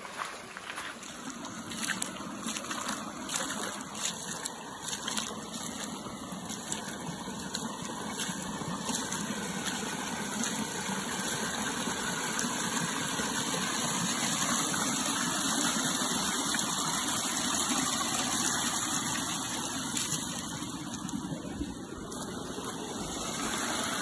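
Water of a shallow natural hot-spring creek running over rocks, with splashing footsteps wading through it in the first few seconds; the water grows louder toward the middle.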